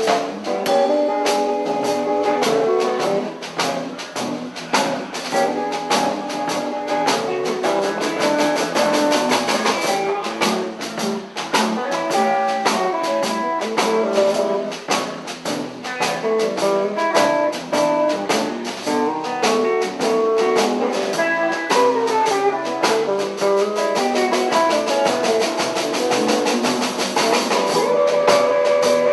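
Blues band playing: guitar lines over a drum kit keeping a steady beat, starting suddenly.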